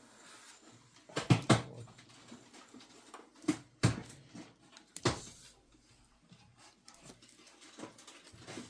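Several sharp knocks and clunks of things being handled: a quick cluster about a second in, then single knocks at about three and a half, four and five seconds.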